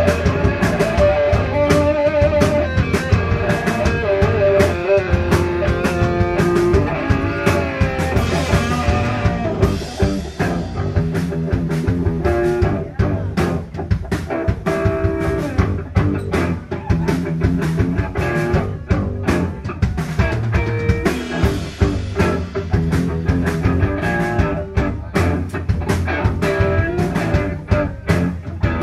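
A rock band playing live: electric guitar over a drum kit, with cymbal and drum hits keeping a steady beat.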